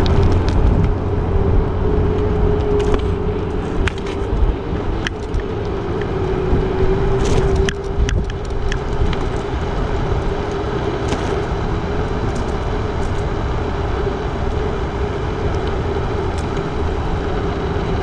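Gyroor Urban Max C1 electric scooter riding along: a steady hum over continuous rumbling road and air noise, with a few sharp knocks a few seconds in.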